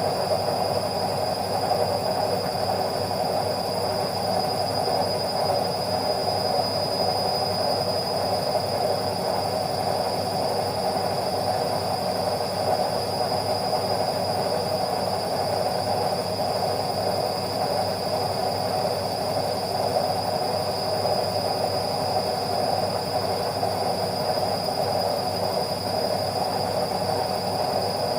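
Indesit washing machine running with a steady, even mechanical hum and rumble, with a faint constant high whine over it.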